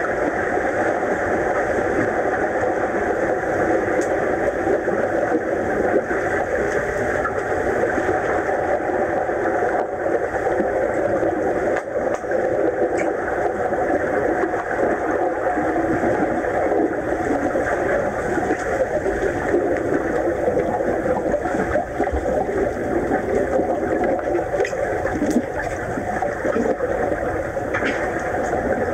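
Steady, muffled underwater noise of a swimming pool, with a few faint clicks.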